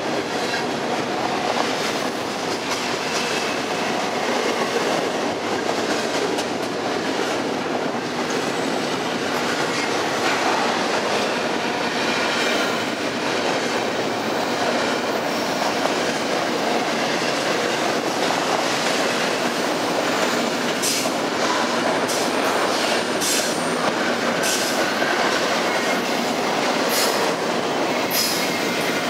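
Double-stack intermodal container train rolling past close by, a steady rumble and rattle of wheels and cars, with faint wheel squeal on the curve at times and a few sharp clicks in the last several seconds.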